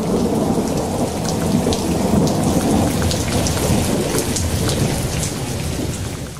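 Thunderstorm sound effect: rumbling thunder over steady rain, fading out near the end.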